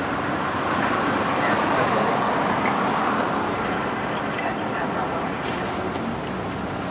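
Steady road traffic noise, the even rumble of vehicles on a city street, with a faint high whine above it.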